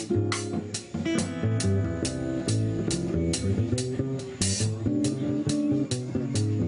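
Live jazz trio playing: hollow-body guitar, plucked upright double bass, and a drum kit keeping a steady beat on the cymbals, about two to three strokes a second.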